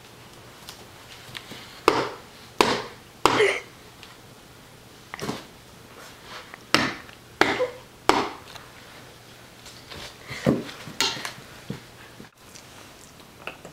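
About ten sharp knocks at uneven intervals, a second or two apart, the loudest three coming close together a couple of seconds in.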